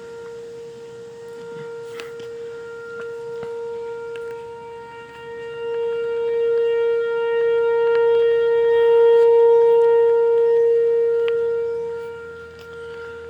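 Whelen Vortex R4 outdoor tornado warning siren sounding a steady, unwavering tone. It grows louder about halfway through and then fades again.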